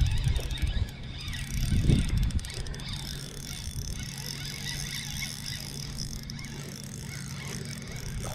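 Fishing reel being cranked with a ratcheting, whirring mechanical sound while a hooked bass is reeled in. Heavy rumbling knocks of rod and boat handling in the first second and again about two seconds in, over a steady low hum.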